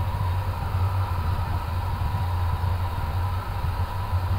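Airbus A350 cockpit noise while taxiing: a steady low hum with a thin steady tone above it, from the idling engines, air conditioning and ground roll.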